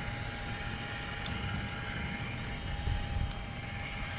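Motor of a powered roof vent in a camper van running steadily as it closes and lowers the vent lid: a steady whine over a low rumble, with a couple of faint clicks.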